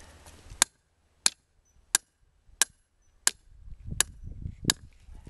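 A hammer striking a stake seven times at an even pace, about three blows every two seconds, driving the stake further into the ground to lower that end of the track.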